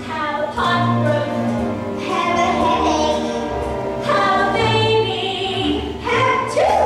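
Female voices singing a Broadway show-tune duet with instrumental accompaniment underneath.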